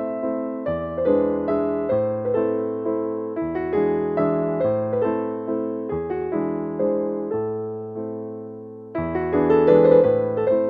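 Background piano music: gentle chords and melody notes, each fading after it is struck, with a louder phrase coming in about nine seconds in.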